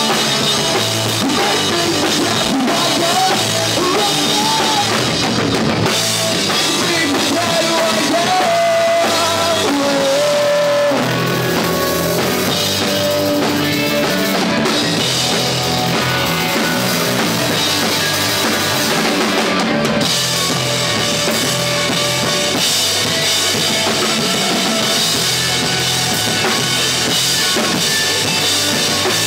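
Live rock band playing loudly, with a drum kit, electric guitars and bass.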